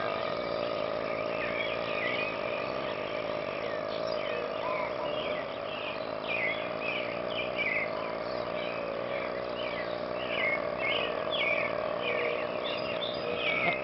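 Outdoor ambience: many short, falling chirps, like small birds or insects, over a steady high drone.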